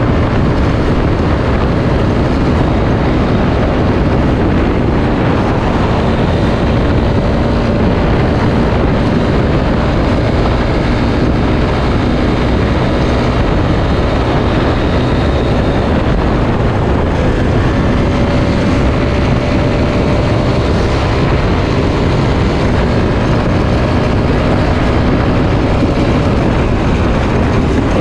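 Suzuki Satria F150 FI's single-cylinder four-stroke engine running while the motorcycle is ridden, its note fairly steady, under heavy wind rush on the action-camera microphone.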